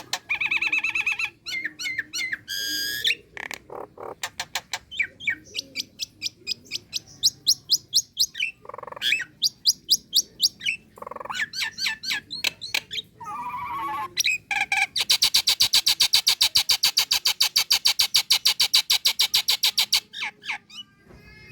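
Female Nias hill myna calling: a varied string of short whistles, clicks and harsh notes, then a fast, even clicking rattle lasting about five seconds in the second half.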